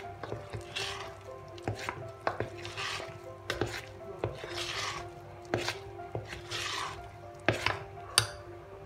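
Metal spoon folding thick cake batter in a stainless steel bowl: repeated swishing strokes through the batter, with sharp clinks and scrapes of the spoon against the bowl's side.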